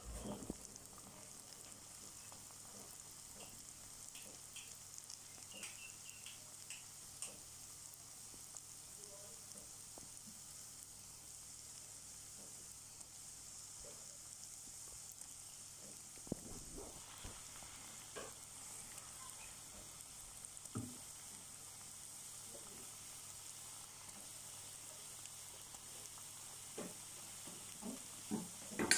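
Seeni bello dough pieces deep-frying in hot oil in a metal wok: a steady sizzle with scattered small crackles, a few louder near the end.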